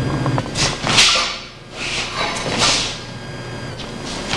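A few sharp whooshes of butterfly swords (Wing Chun baat jaam dao) being swung and cut through the air, each lasting about half a second, about a second apart.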